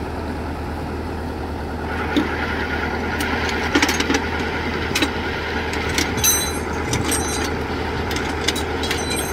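Rice combine harvester's diesel engine idling steadily while the machine sits stuck in the mud, with scattered knocks and clatter from about two seconds in.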